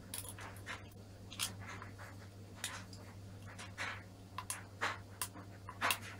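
Small precision screwdriver turning and scraping in the screws of a WD Blue 2.5-inch laptop hard drive's metal cover: a string of short, irregular ticks and scratches over a steady low hum.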